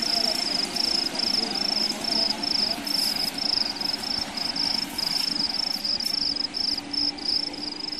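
An insect chirping in a steady rhythm, about four high-pitched pulses a second, over a continuous low background hum.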